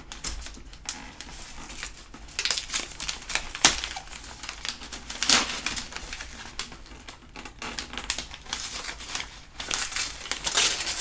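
Gift wrapping paper crinkling and rustling as it is handled and peeled off a box. The crackles come unevenly, with sharper ones about three and a half and five seconds in and a busier run near the end.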